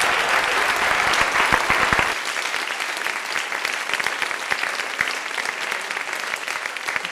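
Audience applauding, heaviest in the first two seconds and then easing off a little.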